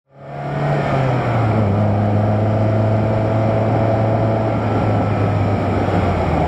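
Car driving along a road, engine running steadily under a haze of road and wind noise; the engine note drops a step about a second in. The sound fades in at the start.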